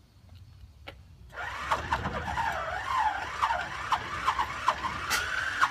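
Cessna 195's seven-cylinder Jacobs radial engine turned over by its electric starter, beginning about a second in. The starter whine rises and falls with each compression and regular clicks come about three a second, without the engine catching.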